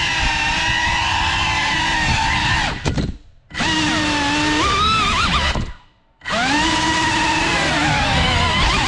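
Brushless motors and propellers of a GEPRC CineLog 35 FPV quadcopter whining, the pitch rising and falling with the throttle. The sound drops out briefly twice, about three and six seconds in, as the throttle is cut.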